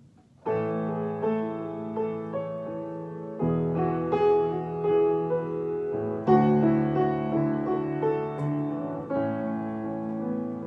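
Keyboard playing a slow instrumental introduction of sustained chords. It starts about half a second in, and the chord changes about every three seconds.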